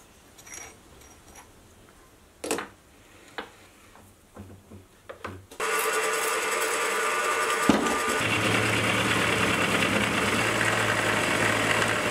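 Steel parallels and workpiece clicking and knocking as they are set into a milling vise; then, about halfway through, a milling machine starts and an end mill cuts into low-carbon round steel stock, a steady running noise that gains a low hum a couple of seconds later.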